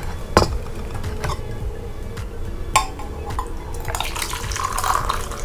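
Stainless steel pot clinking against metal as it is handled, then freshly boiled water pouring from it into a metal mug during the last second or so.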